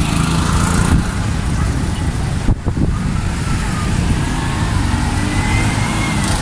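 City street traffic: vehicle engines running and passing, with an auto-rickshaw's small engine close by. The rumble is steady, with a brief dip about two and a half seconds in.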